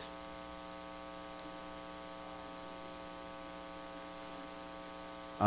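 Steady electrical hum made of several held tones.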